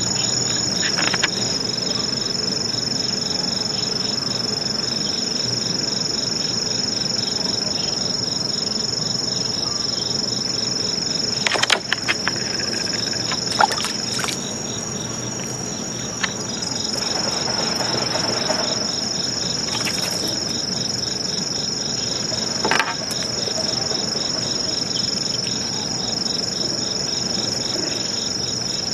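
Steady high-pitched insect chorus of crickets or similar insects; it drops out briefly about halfway through. A few sharp clicks stand out over it.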